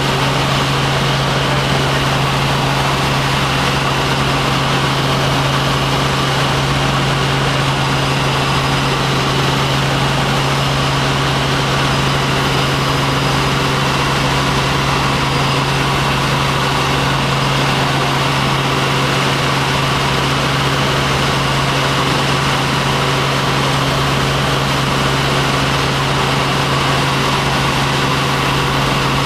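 Helicopter in flight: a loud, steady drone with a constant low hum that never changes.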